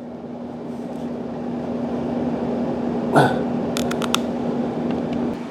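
A 2008 Samsung window air conditioner running: a steady fan rush with a constant low hum, growing louder. About three seconds in there is a short sliding sound, then a few quick clicks.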